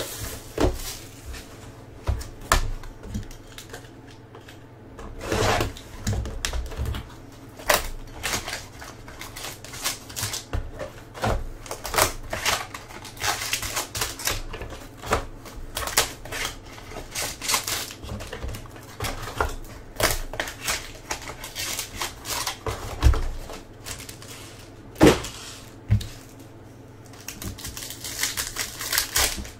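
Plastic shrink wrap crinkling and tearing as a sealed trading-card box is unwrapped and its packs are handled, then a plastic card pack being torn open near the end. It comes as an irregular run of crackles and rustles with a few sharper snaps.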